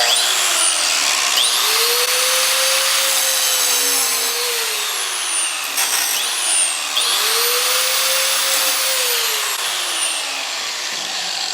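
Angle grinder running and grinding into the metal body of an iPhone 6, a loud hissing grind. The motor's whine rises and then sags twice.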